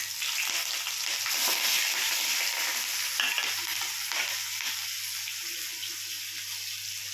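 Whole spice seeds, nigella (kalo jeere) among them, sizzling in hot mustard oil in a small wok. The hiss is strongest about two seconds in and slowly dies down.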